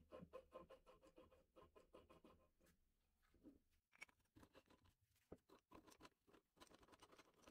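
Faint, irregular clicking and scraping of a rusted ratchet wrench's head and pawl as it is worked back and forth by hand; the ratchet cannot be locked. The clicks thin out for a moment around the middle.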